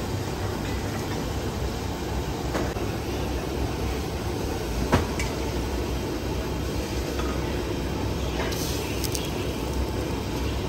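Steady low rushing roar of a commercial gas stove burner running at full flame under a small pot, with one sharp click about five seconds in.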